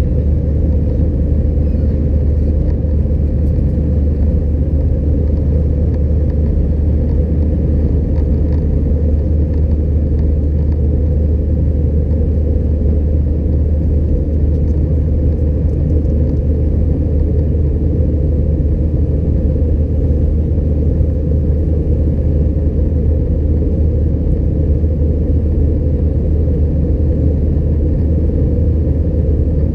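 Steady low rumble of cabin noise inside an Airbus A320-211 airliner, its engines running without change in pitch or level.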